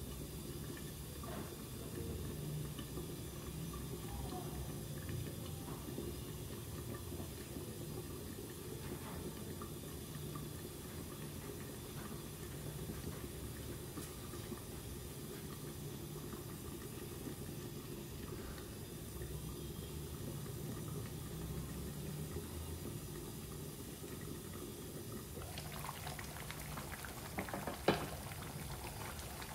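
Chicken curry gravy simmering in a covered pot, a steady low bubbling. Near the end come a few light clicks and one sharp knock.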